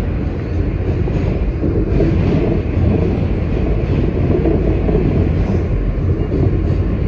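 R160 subway car running along the track, heard from inside the car: a steady rumble of wheels on rail.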